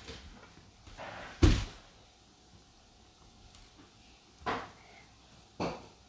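A few knocks of plastic building parts being handled and set down on a tabletop. The loudest is a solid thump about one and a half seconds in, and two lighter taps come later.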